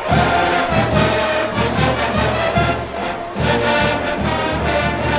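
Marching band playing: brass over a steady drum beat.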